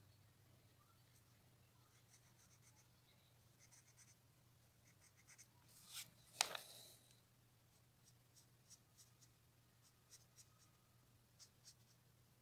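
Felt-tip marker drawing on paper: faint, short scratchy strokes in small groups, with one sharper tap a little past halfway.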